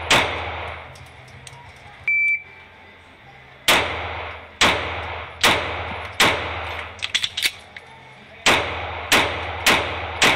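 Pistol shots with indoor range echo. One shot lands right at the start, then a shot timer's single high start beep, then four quick shots, a short gap with small clicks of a magazine reload, and four more shots.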